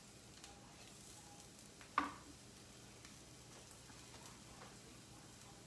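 Faint, quiet sizzling and ticking of tortillas cooking in a frying pan, with one sharp click about two seconds in.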